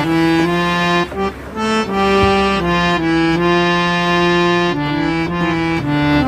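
A harmonium played after servicing: its reeds sound held notes and chords that move from one pitch to the next, with a brief break a little after a second in. The notes are in tune.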